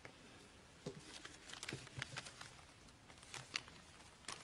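Near-quiet pause with faint, irregular clicks, taps and rustles scattered through it, a few a second.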